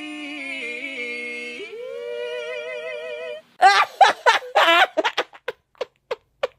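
A man and a woman singing together, holding one long note with a pitch slide partway through. It cuts off at about three and a half seconds and a woman breaks into loud, high laughter that trails off into short, fading bursts.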